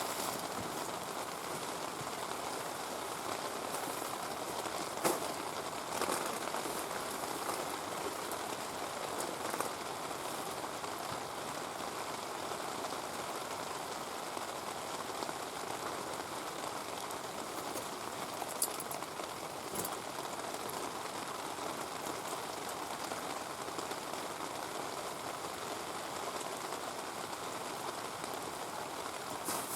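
Heavy rain falling steadily, a dense even hiss, with a few sharp clicks standing out now and then.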